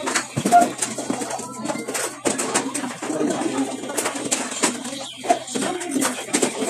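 Dining-table sounds: short clinks of spoons and forks against plates and glasses over a low murmur of voices in the room.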